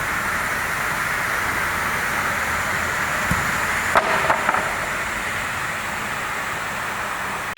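Log multi-blade rip saw machinery running with a steady mechanical noise, with a few sharp knocks around the middle.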